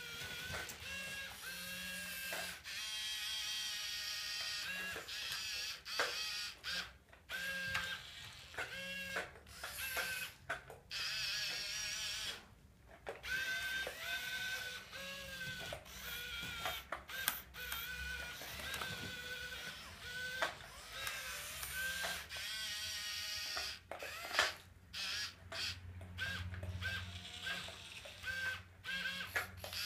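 Electric motors and gearboxes of a radio-controlled Komatsu scale-model excavator whining in short runs that start and stop as the boom, arm, bucket and upper body move.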